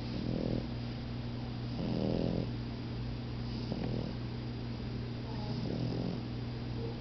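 French bulldogs snoring in their sleep, with a rasping snore about every two seconds over a steady low hum.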